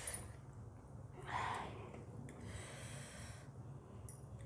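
Close-miked eating sounds: soft chewing with breaths drawn in and out through the nose and mouth. The loudest breath comes about a second and a half in, and a few faint mouth clicks come near the end.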